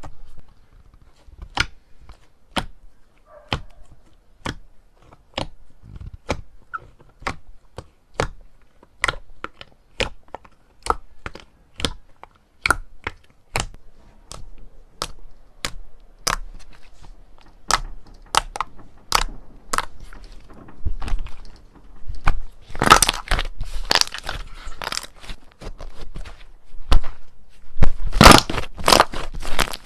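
Slime being pressed and played with by hand, giving sharp clicking pops at an even pace of about one every half second to two-thirds of a second. Near the end come louder, denser bursts of crackling and crunching.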